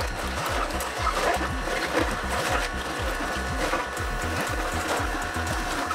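Vertical slow juicer running steadily as its auger presses green cabbage, apple and turmeric.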